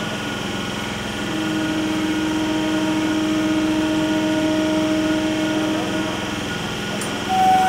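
Conventional MEMU electric train standing at a platform, its onboard electrical machinery humming steadily. A stronger steady tone joins about a second in and fades around six seconds, and a higher clear tone starts near the end.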